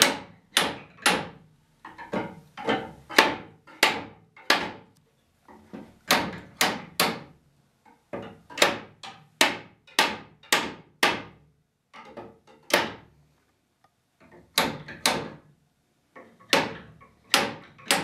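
Hammer blows on the wooden arm of a continuous-arm Windsor chair, knocking the arm up the spindles during dry assembly. Sharp taps, about two a second, come in short runs of two to four with brief pauses between them.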